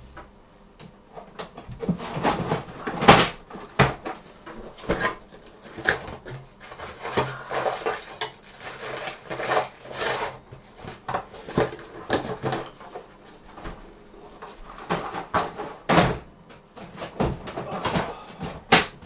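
Rummaging through a storage box of parts by hand: an irregular run of clatters, knocks and rustles, starting about a second and a half in.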